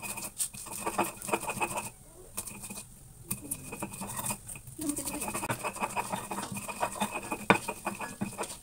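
Stone pestle grinding and knocking in a flat volcanic-stone mortar (ulekan and cobek), crushing chilies into a spice paste: a quick run of irregular scraping clicks. It eases off for about a second two seconds in, with one sharper knock near the end.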